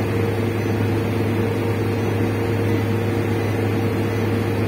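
Car driving at a steady speed, heard inside the cabin: an even hum of engine and road noise that does not change.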